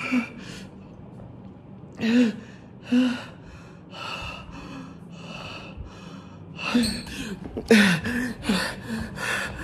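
A man gasping and breathing hard in short, frightened bursts, some with a brief voiced whimper; the breaths come thick and fast in the last few seconds.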